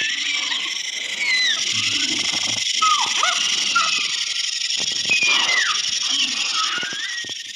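Animal-like creature sound effects: a steady high hiss with many short squeaking, chirping glides over it, most of them falling in pitch.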